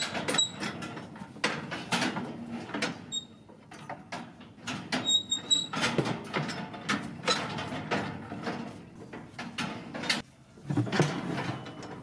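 Irregular knocking and clattering, as of something being handled, with a few short high squeaks about five seconds in.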